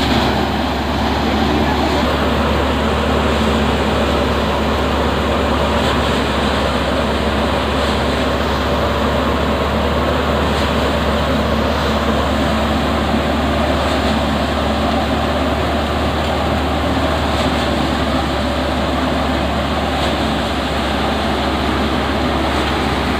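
Tractor-driven paddy thresher running steadily while threshing rice, its drum and blower making a loud, even mechanical drone together with the tractor's engine.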